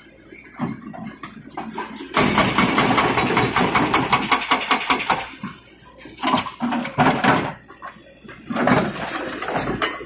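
Excavator-mounted hydraulic breaker hammering into concrete rubble: rapid chisel blows in three bursts, a long one starting about two seconds in and two shorter ones after, with pauses between. The excavator's engine runs underneath.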